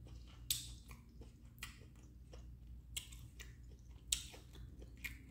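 Quiet chewing of a mouthful of food, with a few short, sharp clicks scattered through.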